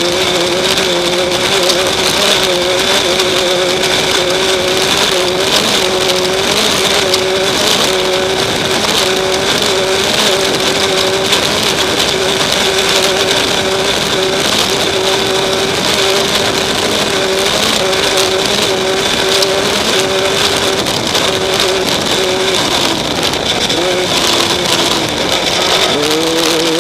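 Off-road race vehicle's engine running at steady revs under load, heard onboard over heavy wind and rattling terrain noise; near the end the revs drop and climb back up.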